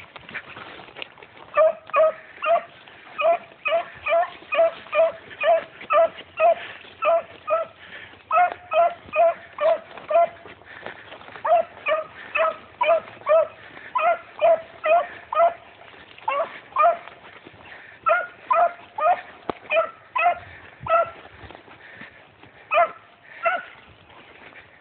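A dog barking in a long series of short, same-pitched barks, about two a second, in bouts with brief pauses.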